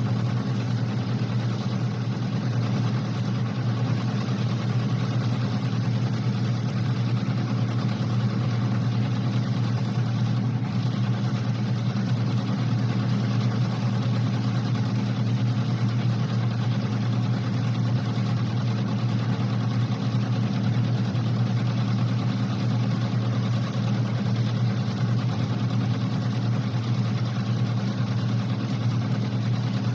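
Card reader machine running as it feeds cards: a steady, unchanging motor hum with a mechanical whir over it.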